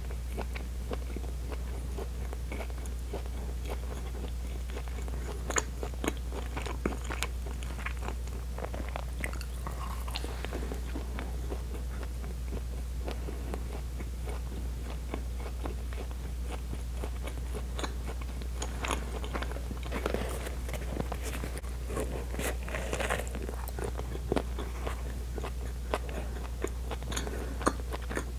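Close-miked chewing of soft, chewy pão de queijo cheese bread: irregular wet mouth clicks and smacks, over a steady low hum.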